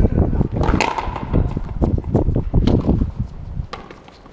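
Frontenis rally: the rubber ball cracking off the players' strung rackets and the fronton wall in a string of sharp, irregular hits, dying down near the end.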